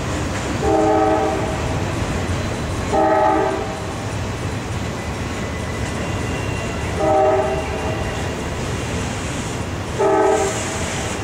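Freight train of autorack cars rolling steadily through a grade crossing. Over it, a train horn sounds a chord of several notes in four short blasts a few seconds apart.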